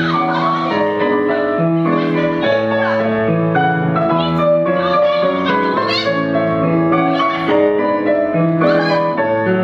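Piano music playing steadily, with a voice calling out briefly now and then over it.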